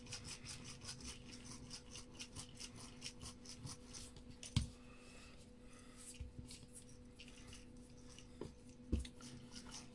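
Spice jar rolled and pressed over self-hardening clay in a silicone mould: faint, rapid scraping and rubbing, with a couple of light knocks about four and a half and nine seconds in.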